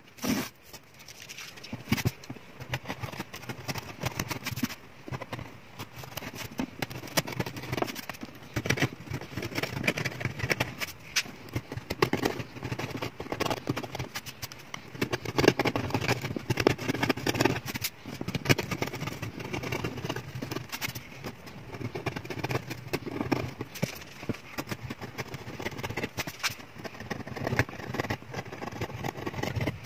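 Knife blade scraping old glue and wood residue off the bridge footprint on the top of a nylon-string classical guitar: quick, irregular scratching strokes with many small clicks.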